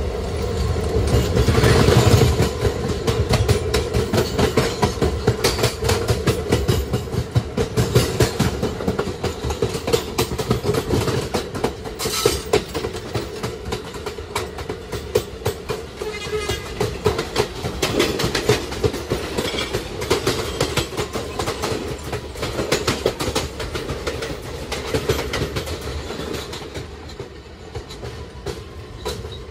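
Kawasaki R211A subway car with Alstom OptONIX IGBT-VVVF propulsion running at speed, its wheels clicking rapidly over the rail, over a steady hum from the traction equipment. The sound drops somewhat in the last few seconds.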